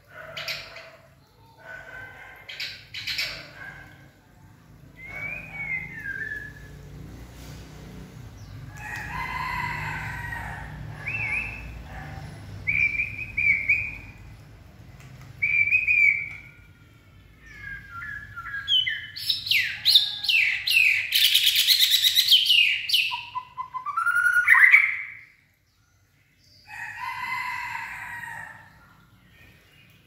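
Male white-rumped shama singing: short whistled phrases and sweeping notes, rising about twenty seconds in to a loud rush of fast notes that breaks off suddenly, then one more phrase near the end.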